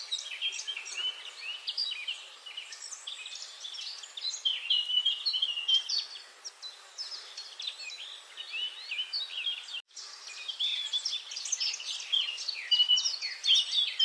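Many small birds chirping and twittering at once, a dense chorus of short overlapping chirps and quick pitch sweeps. The sound cuts out for a split second just under ten seconds in.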